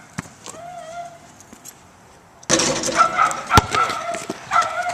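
A basketball striking hard once, a sharp knock about three and a half seconds in. It sits over outdoor noise and high wavering voice-like sounds that start abruptly about halfway through.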